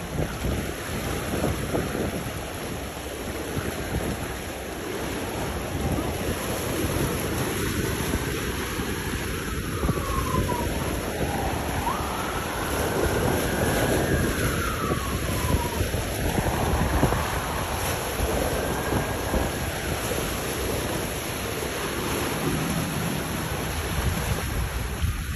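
Wind noise on the microphone over choppy inlet water, with a passing motor yacht's engines running underneath. Faint wavering tones rise and fall in the middle.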